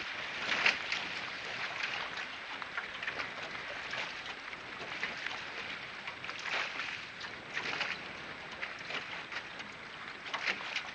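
Choppy wind-blown water slapping and splashing against a boat's hull at irregular intervals, over a steady rush of wind and water.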